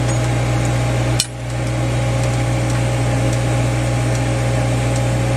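Geoprobe 7700 direct-push drilling rig's engine and hydraulics running at a steady drone, with one sharp metallic knock about a second in while sampling rods are being handled.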